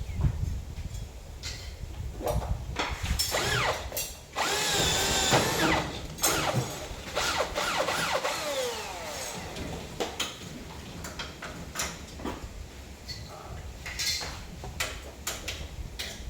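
Power drill running in several short bursts, its pitch shifting and falling as it slows, the loudest burst near the middle, followed by scattered clicks and knocks.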